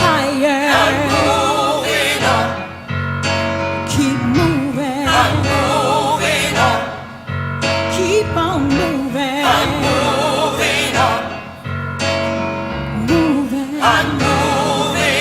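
Gospel vocal group singing, sustained vibrato-laden phrases over a steady low accompaniment.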